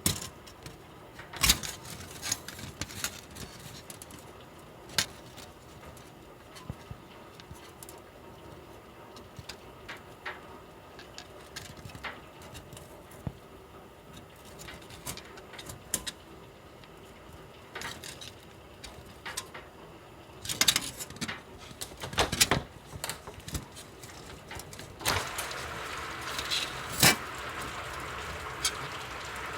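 Heavy rain in a downpour: a steady rain hiss with scattered sharp taps of drops striking. The hiss grows louder about 25 seconds in.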